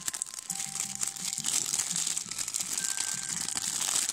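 Thin clear plastic sticker packet crinkling and crackling steadily as fingers work it open.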